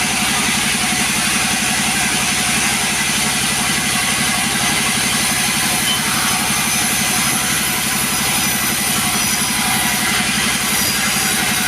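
Two-stroke chainsaw running at a steady, unchanging speed.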